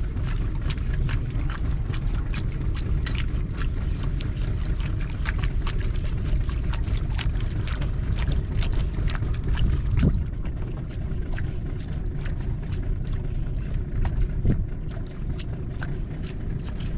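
Small outrigger fishing boat at sea: water lapping and splashing against the hull in many small irregular ticks over a steady low rumble, with a slightly louder knock about ten seconds in.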